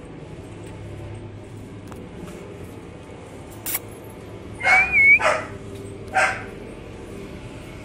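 Dog barking: three short barks about four and a half to six seconds in, the first with a short wavering high tone over it, after a single click.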